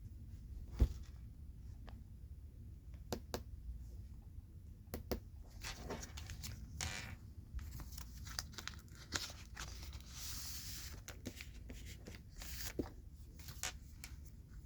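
Oversized Pokémon cards handled close to the microphone: scattered taps and clicks, the loudest just under a second in, with a longer rustling scrape around ten seconds in.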